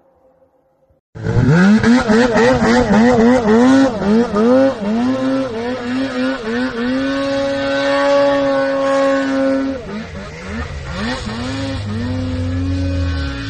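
Snowmobile engine starting abruptly about a second in, then revving hard with its pitch swinging quickly up and down as the throttle is worked. It settles into a steady high-pitched run for a few seconds, dips near ten seconds in, and then revs up and down again before holding steady.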